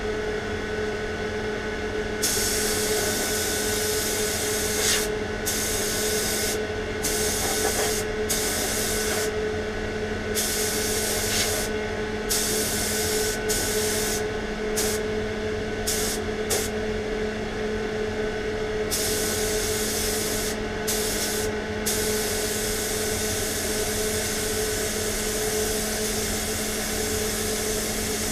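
Compressed-air spray gun hissing as it sprays a coat of clear lacquer, the trigger let go for a moment many times between passes, then held for one long pass near the end. A steady hum runs underneath.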